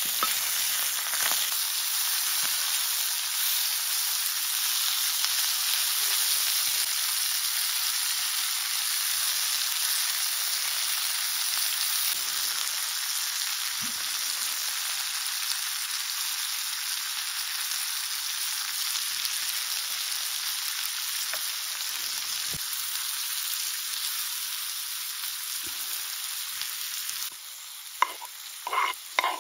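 Pieces of meat sizzling in a cast iron pan over campfire embers: a steady frying hiss. Near the end the hiss drops suddenly, and a run of short knocks and scrapes follows as sliced onions are scraped off a wooden plate into the pan.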